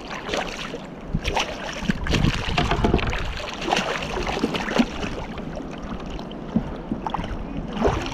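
Water splashing and sloshing around a kayak, with wind rumbling on the microphone and scattered irregular knocks.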